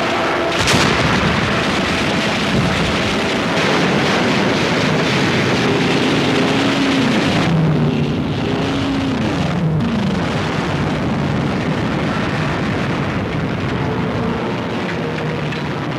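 Battle sound effects of an air raid: a constant roar of explosions and gunfire, with several falling whines near the middle.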